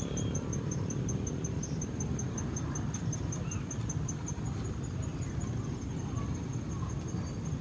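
An insect chirping in a steady high-pitched pulse, about four or five chirps a second, pausing briefly near the end, over a steady low rumble.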